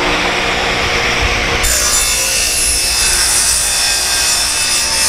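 Table saw running, then its blade cutting through a small plywood panel fed along the fence, a steady high-pitched cutting noise that starts about a second and a half in and holds for several seconds.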